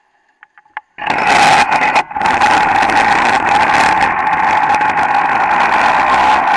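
Vortex VR98 100cc two-stroke kart engine catching on a push start about a second in, then running loud and steady, with a brief dip near two seconds.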